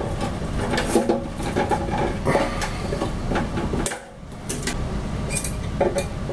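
Metal clicks and scraping of a long Allen wrench turning the screws that hold the Epax X1 printer's UV light cone, over a steady low hum. Everything drops away briefly about four seconds in.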